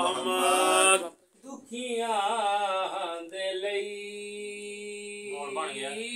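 Unaccompanied male voice chanting a qasida. A loud phrase breaks off about a second in, and after a short pause a single voice sings long held notes with wavering ornaments.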